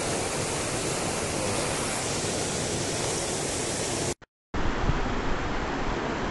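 Fast mountain river rushing over boulders and rapids, a steady, even wash of white-water noise. It drops out for a moment about four seconds in, then comes back.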